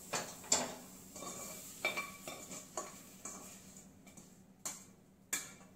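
A metal spatula scraping and knocking against a stainless-steel kadai as sautéed vegetables and paneer are scraped out into a bowl: about seven irregular sharp knocks with scraping between them.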